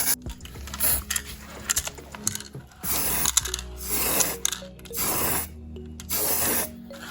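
Hand work on a small die-cast model car: clicks and several half-second to one-second noisy stretches, over steady background music.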